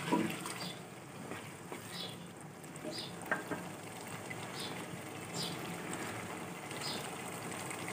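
Keema and pea curry simmering in a pot, a steady low bubbling with scattered small pops.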